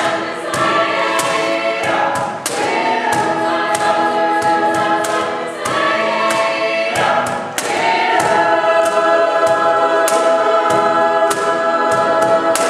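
Mixed choir singing, with a cajón struck in a steady beat and piano accompaniment.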